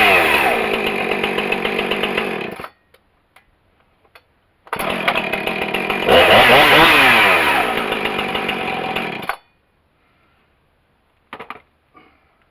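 Husqvarna 455 Rancher's 55.5 cc two-stroke chainsaw engine revving and winding back down, twice, each run cutting off abruptly. There is a faint click near the end.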